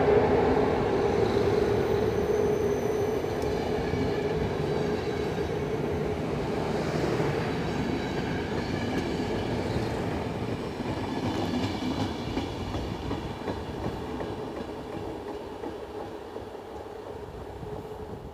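Departing passenger train: CFR Călători coaches rolling past on the rails with a steady whine underneath. The sound is loudest at first and fades gradually as the train pulls away.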